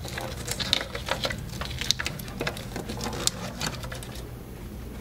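Irregular small clicks, taps and rattles of a plastic taillight assembly and its wiring being handled and pushed up into a steel rear bumper, dying away about four seconds in.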